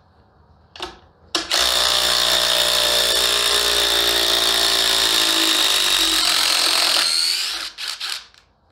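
Cordless impact driver hammering a 12-inch lag screw into wood for about five and a half seconds, its rattling pitch dropping toward the end as the screw goes in under load, then stopping. A few knocks follow near the end.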